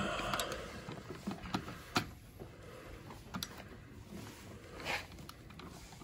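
Several faint plastic clicks from the buttons of a programmable wall thermostat being pressed, the sharpest about two seconds in.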